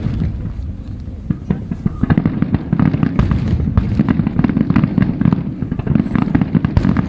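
Starmine fireworks barrage: many aerial shells bursting in quick succession, with sharp cracks over a deep rolling rumble that grows denser and louder about two seconds in.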